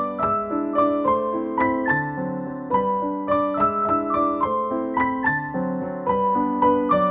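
Background music on piano: a gentle, flowing melody of single notes over soft chords, in an even, unhurried rhythm.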